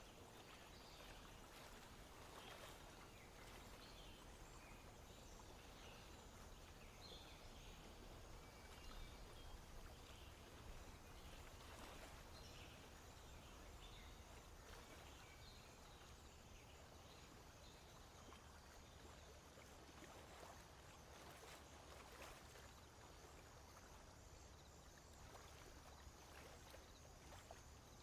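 Near silence: faint outdoor background noise, with a few faint, short high-pitched sounds scattered through it.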